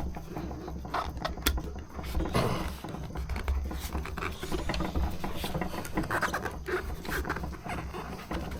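Plastic spoon levering a scooter's rubber tire bead around the rim: irregular rubbing, scraping and clicks over a low rumble.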